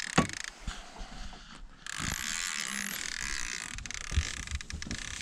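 Fishing reel's clicker ratcheting as a musky works a live sucker rig before the hook is set. The clicking stops about half a second in and starts again about two seconds in, with a sharp knock near the start and a few softer thumps later.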